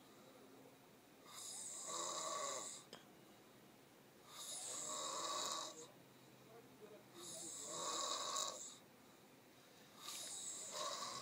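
A man snoring in his sleep: four long snores about three seconds apart, each lasting about a second and a half, with quiet breathing between them.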